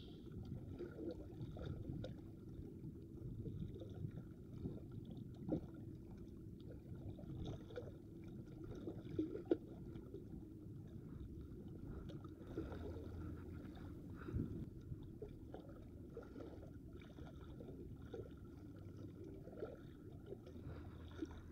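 Faint low sloshing of small waves lapping against shoreline rocks, with a few soft scattered knocks.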